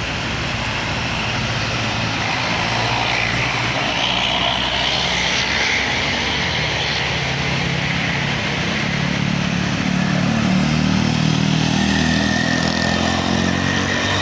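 Medium-sized buses driving past, their diesel engines growing louder as they come close. A thin steady high tone joins near the end.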